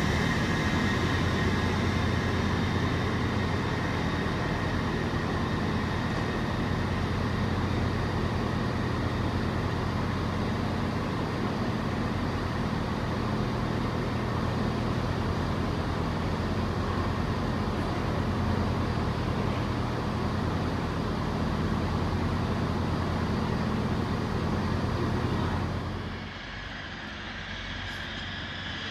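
A train at the station with its engine running steadily, a low, even drone. It drops away suddenly a few seconds before the end, and a different higher tone comes in.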